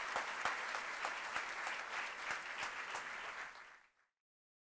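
Audience applauding, fading out about three and a half seconds in and then cutting to silence.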